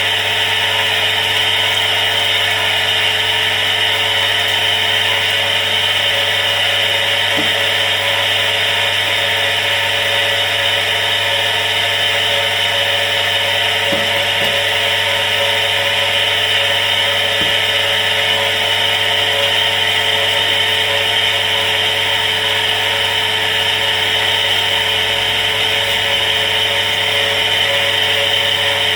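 Household electric water pump running steadily and noisily: a constant motor whine and hiss over a low hum.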